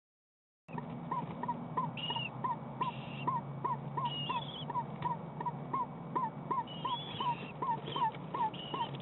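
Animal calls in an eastern screech owl nest box holding owlets: a steady run of short chirps, about three to four a second, with higher squeaky calls breaking in every second or so over a low hum. The sound cuts in suddenly a little under a second in.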